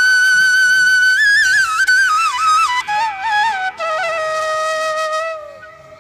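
Background music: a solo flute playing a slow melody. It holds a long high note for about two seconds, steps down in small ornamented turns, and settles on a long low note that fades out shortly before the end.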